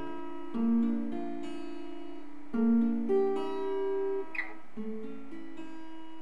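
Acoustic guitar playing an instrumental passage of picked notes and strummed chords, with no voice. There are two short scraping squeaks from fingers sliding on the strings.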